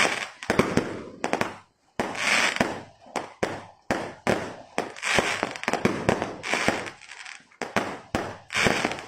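Fireworks going off in quick succession: sharp bangs about twice a second, each trailing off in crackle, with a short lull near the two-second mark.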